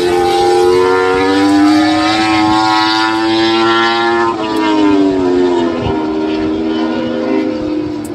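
MotoGP race bike's four-cylinder engine at high revs, its pitch climbing steadily as it accelerates out of a corner. About four and a half seconds in the pitch drops sharply and keeps falling as the bike pulls away.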